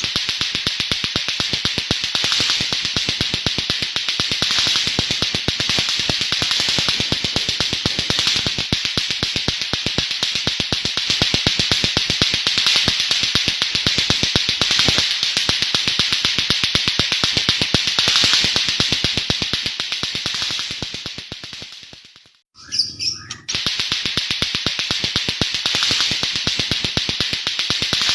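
White-rumped shama (murai batu) singing its harsh, rapid-fire 'nembak' song: a dense stream of fast, clicking notes that rattle like lato-lato clackers. It fades out about 22 seconds in, gives a short burst, and starts again a second later.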